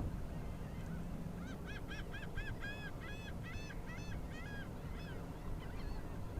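A bird calling a quick run of about a dozen short rising-and-falling notes, about four a second, that trail off into a few fainter ones near the end, over a steady low rumble.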